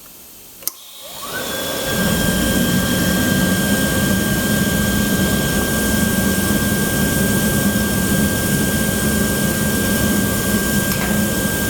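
Lanair waste oil burner starting up: a click, then its blower motor spins up with a rising whine and settles into a steady, loud running noise with a constant whine as the burner fires.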